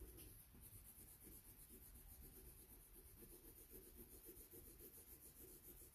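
Faint scratching of an orange colored pencil shading on paper in quick, even back-and-forth strokes, layering color over earlier passes.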